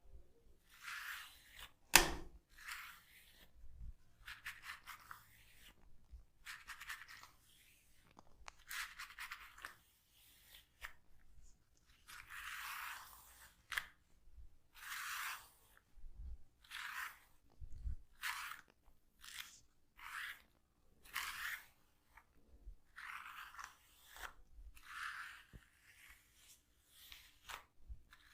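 Hands massaging a head, fingers rubbing and scratching through the hair and over the scalp in repeated short strokes, with one sharp click about two seconds in.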